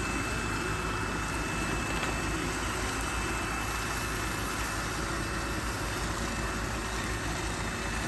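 Two robot vacuums, an iRobot Roomba 690 and a Lubluelu, running together: a steady whir of their vacuum motors and brushes, with a faint high whine.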